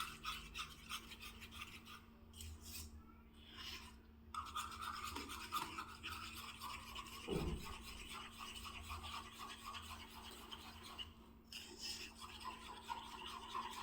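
Eggs mixed with a little flour, cornflour and salt being beaten by hand in a bowl: a utensil scraping quickly and evenly against the bowl's sides.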